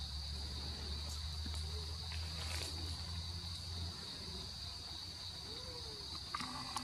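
Steady high-pitched chorus of forest insects, such as crickets or cicadas, with a low rumble underneath that stops about four seconds in.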